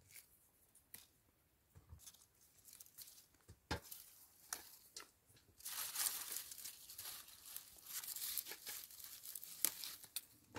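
Tomato plant leaves and stems rustling as ripe tomatoes are picked by hand, with scattered sharp clicks. The rustling thickens and gets louder about halfway through.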